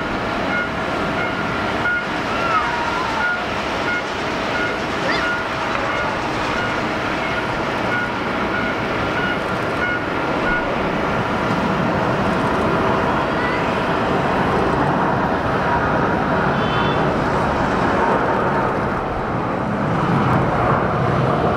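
Boeing 787-9's Rolls-Royce Trent 1000 turbofans on the runway: a steady roar with a held whine in the first half, then the roar builds as the engines spool up for the takeoff roll.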